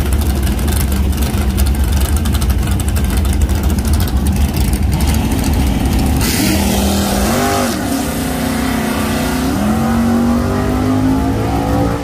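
Drag cars' engines running loud with a rough, lumpy rumble. About six seconds in, one engine's note rises, dips briefly a second or so later, then climbs slowly and steadily again.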